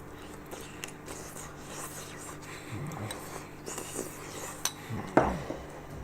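Cutlery clinking and scraping against a glass oven dish during eating, in scattered small clicks. A microwave oven hums steadily underneath, and there is a short voiced sound about five seconds in.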